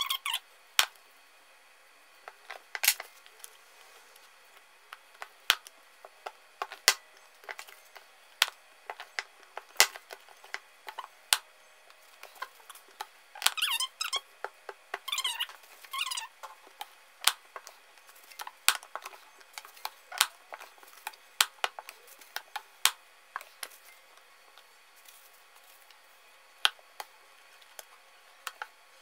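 Scattered sharp clicks and knocks as a loaf of charcoal soap is cut into bars with a wooden single-wire soap cutter and the loaf and cut bars are handled on a plastic board, with a few brief squeaky scrapes around the middle.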